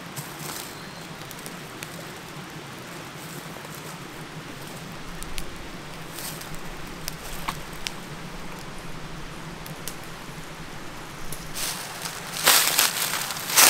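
Steady rushing of a stream, with scattered light clicks and rustles. Near the end, a spell of loud crunching and rustling.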